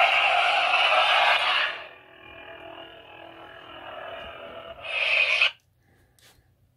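Lightsaber sound effects from a Golden Harvest v3 soundboard through the hilt's small speaker: a loud ignition sound, then a quieter steady hum, then a short loud retraction sound that cuts off sharply about five and a half seconds in.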